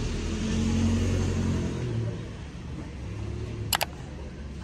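A motor vehicle's engine running close by, loudest in the first two seconds and then easing off. A single sharp click nearly four seconds in.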